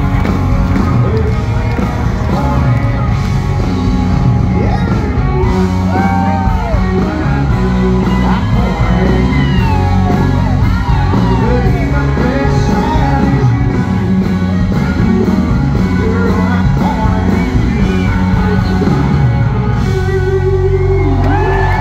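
Live country music at full volume: a male lead singer backed by a band with electric guitars.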